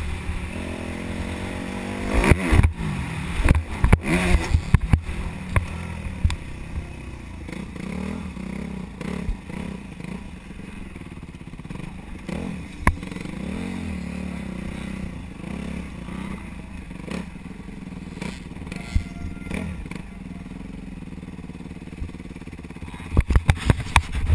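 Dirt bike engine heard from the rider's helmet camera, revving up and down a few times in the first seconds, then running at low speed with a steadier, lower note. A few loud bumps come near the end.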